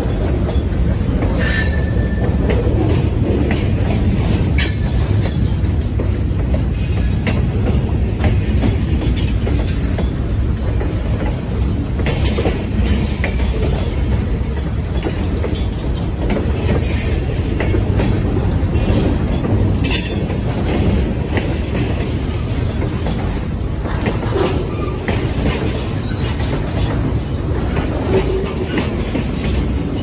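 Freight cars, gondolas and then boxcars, rolling past at close range: a steady rumble of steel wheels on rail with clicks and knocks as the wheels cross rail joints. A brief high wheel squeal comes about a second and a half in.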